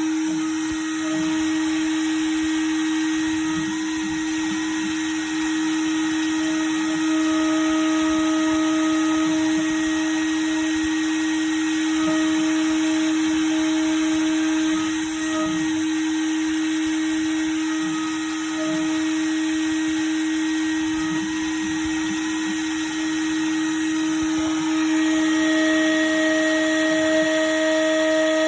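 The spindle of a small home-built CNC milling machine runs with a steady high-pitched whine while cutting brass. Its overtones come and go as the cutter works, and it grows a little louder and brighter near the end.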